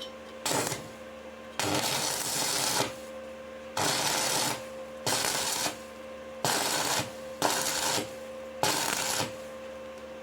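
Stick-welding arc crackling in short bursts, struck and broken seven times, each lasting half a second to a second: intermittent break-arc welding of a pipe seam with a covered electrode. A faint steady hum sits underneath.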